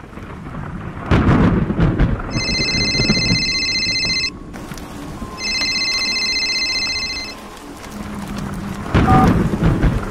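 Thunderstorm with rain, with a thunderclap about a second in and another near the end. In between, a mobile phone rings twice, each ring a steady electronic tone about two seconds long.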